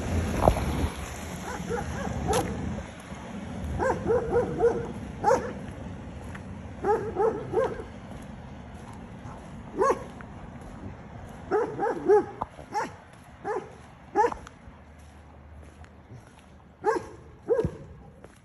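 A dog barking in short bursts of one to four barks every few seconds, with a low rumble of passing traffic in the first few seconds.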